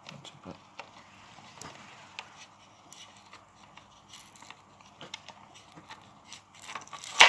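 Serrated kitchen knife blade scraping and prying inside the glued seam of a TP-Link CPE220's plastic housing: a run of small clicks and scrapes of steel on plastic, working the glue loose. A single loud sharp noise comes near the end.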